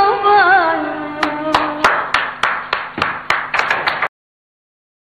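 A woman's singing voice holds and ornaments a long final note of an Arabic muwashshah over instrumental accompaniment, fading out about a second and a half in. From about a second in, sharp percussion strokes come roughly three a second, quickening near the end, before all sound cuts off suddenly.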